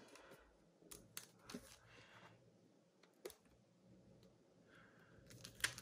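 A handful of faint clicks and taps, with a quick cluster near the end, as fingers peel adhesive rubber feet off their backing sheet and press them onto the aluminium bottom case of a unibody MacBook Pro.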